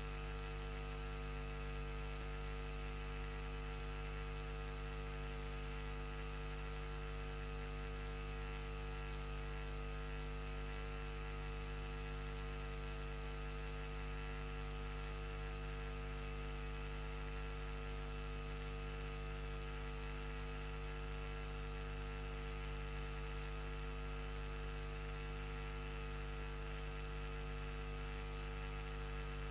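Steady electrical mains hum with a dense stack of unchanging tones. A brief, faint high-pitched whine comes in near the end.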